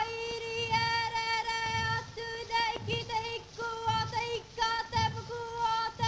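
Background music: a high melody of long held notes over a soft beat about once a second.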